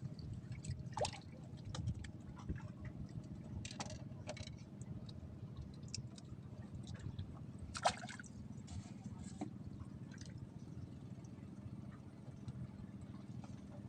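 Water lapping and sloshing lightly, with a few short sharp splashes or knocks over a steady low rumble.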